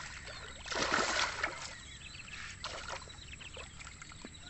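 A large snakehead fish hooked on a set line thrashing at the water's surface, with a loud splash about a second in and lighter sloshing after.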